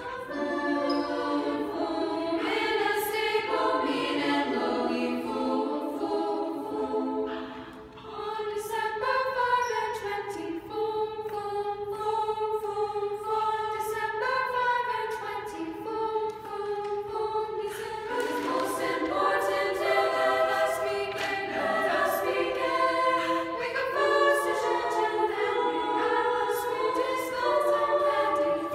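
A small high school choir of girls' voices singing a cappella in harmony, holding and moving between sustained notes, with a brief break between phrases about eight seconds in.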